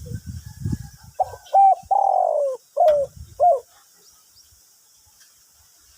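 Spotted dove cooing one phrase: two short coos, a long falling coo, then two more short coos. A low rumble comes before it in the first second.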